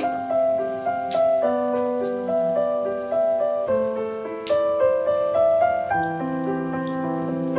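Background music: a piano melody over chords and a bass line, its notes changing about every half second.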